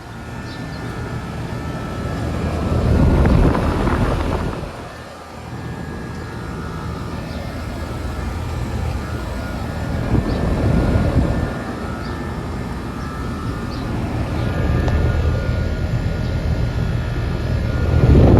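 Outdoor central air-conditioner condenser running: a steady compressor hum under the rush of the condenser fan, swelling louder a few times.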